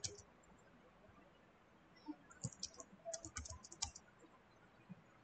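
Faint typing on a computer keyboard: a quick run of about a dozen keystrokes starting about two seconds in and ending near four seconds.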